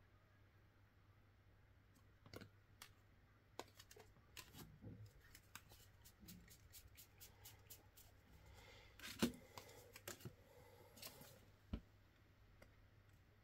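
Playing cards and their packaging handled quietly: scattered light clicks and rustles, with a sharper tap about nine seconds in and another near twelve seconds.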